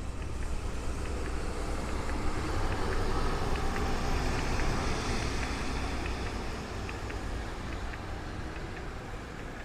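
Steady city street traffic noise, a low rumble that swells a few seconds in and eases off toward the end.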